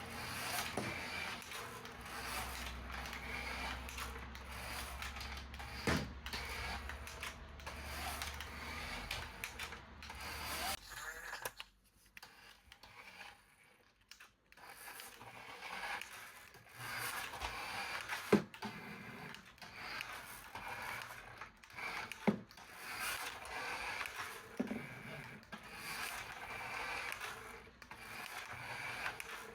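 Plastic clicking and rattling of a toy and its packaging being handled, with scattered sharp clicks and a brief lull near the middle.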